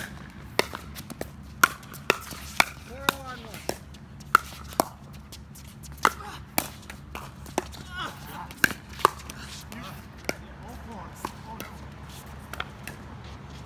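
Pickleball rally: hard paddles popping against the plastic ball and the ball bouncing on the hard court, a quick irregular series of sharp pops about one or two a second, with a brief pause near the middle.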